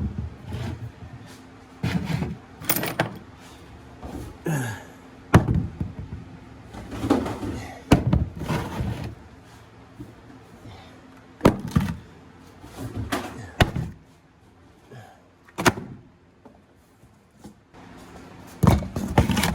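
Things being handled and set down: a run of separate knocks and clunks, about a dozen, with quieter stretches between them.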